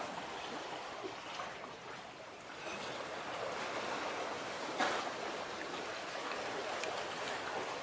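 Steady wash of sea water lapping against the shore, with one brief sharper splash-like sound about five seconds in.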